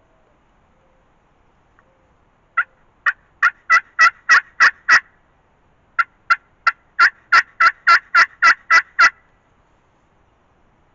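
Turkey yelping: two runs of short, evenly spaced calls, about three a second, the first of about eight notes growing louder, the second of about eleven.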